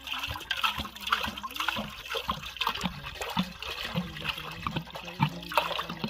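Water pouring in a steady stream from a plastic jug into an aluminium cooking pot, splashing and bubbling as it collects in the metal bottom.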